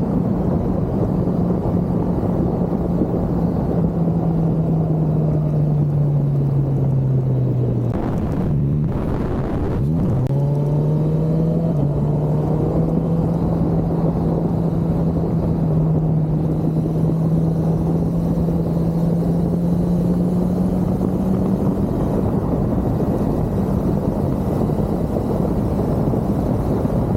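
Kawasaki Z900 inline-four engine under way, its note slowly dropping as the bike slows, then dipping and jumping through a couple of quick gear changes about nine seconds in before holding steady again. Constant wind rush on the microphone throughout.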